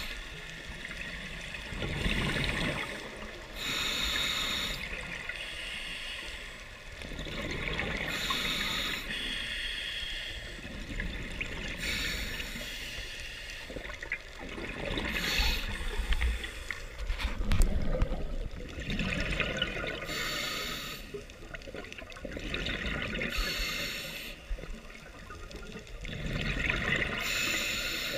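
Scuba diver breathing through a regulator underwater: a slow, even cycle of inhalations and bubbling exhalations, about one breath every four seconds, with a brief louder clatter a little past the middle.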